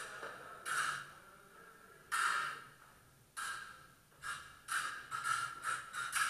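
Fencing sabres striking each other again and again at an irregular pace, about eight clashes, each ringing briefly.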